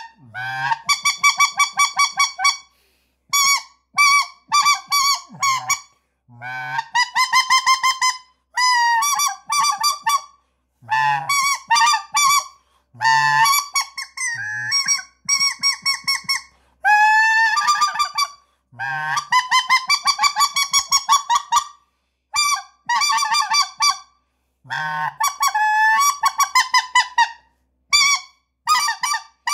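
Corrector combination mouth-blown goose call sounding goose honks in about a dozen runs with short pauses between them. Some runs are fast strings of short clucking honks; others are longer honks that bend upward in pitch.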